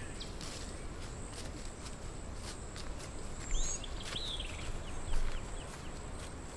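Footsteps crunching through dry leaves and brush, with a few short bird chirps about halfway through.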